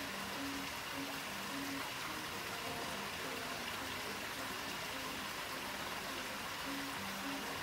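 A steady hiss with faint low notes of background music near the start and again near the end.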